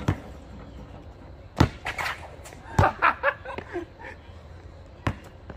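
Basketball bouncing on an asphalt court: a handful of sharp, irregularly spaced bounces, the loudest about a second and a half in, with brief voices in between.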